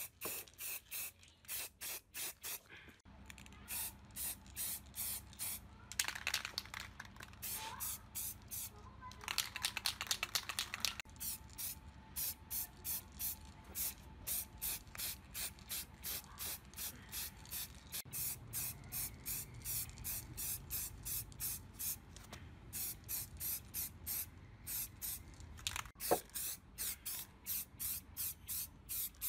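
Aerosol spray-paint can hissing in short, quick bursts, about two or three a second, as paint is sprayed on.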